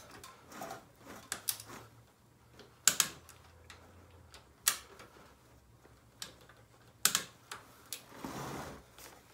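Scattered sharp metal clicks and taps from hand tools tightening the front fork pinch bolts, with a short rasp near the end.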